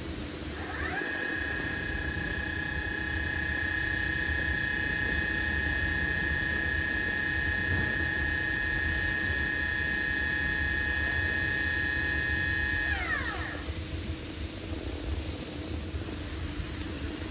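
CNC machining center's electric spindle spinning up to a steady high whine with several overtones about a second in, running at constant speed with the tool spinning free, then spinning down after about twelve seconds of steady running. A steady low machine hum lies underneath.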